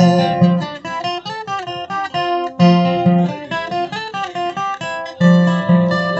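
Acoustic guitar played alone, picking a melody note by note over low bass notes, with a few louder low notes about two and a half and five seconds in.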